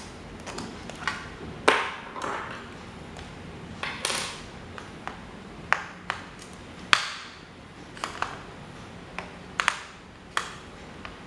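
Metal parts clinking and tapping against each other and a hard surface as an old desk fan is worked on. There are about a dozen irregular sharp strikes, and a few of the louder ones ring briefly.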